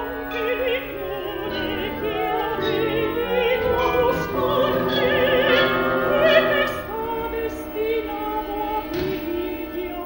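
Contemporary opera music: an orchestra playing sustained chords while an operatic voice sings long notes with wide vibrato.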